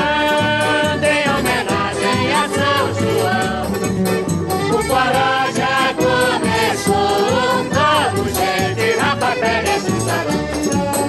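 Instrumental forró music: an accordion-led melody with a shaker keeping the rhythm.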